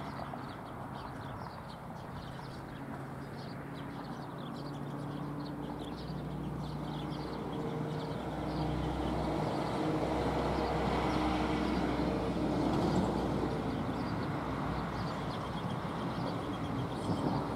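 An engine running with a low steady hum, growing louder through the middle, with birds chirping.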